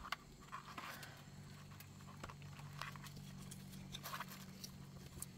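Near-quiet: a few faint, scattered clicks and taps over a faint steady low hum.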